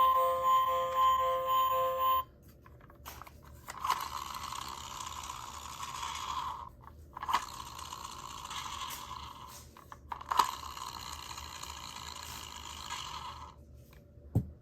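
A music jingle ends about two seconds in. Then a toy minicar's mechanism whirrs in three runs of a few seconds each, each starting with a click.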